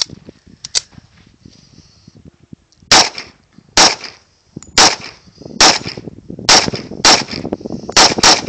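Para-Ordnance P14.45 .45 ACP pistol firing a steady string of about eight shots, roughly one a second, starting about three seconds in. A couple of light clicks come before the first shot.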